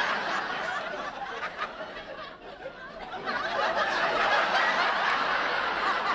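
Studio audience laughing, falling off between one and three seconds in and rising again about three seconds in.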